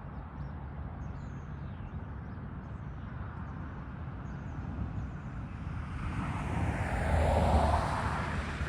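Union Pacific intermodal stack train rolling past, a steady low rumble that builds louder over the last few seconds.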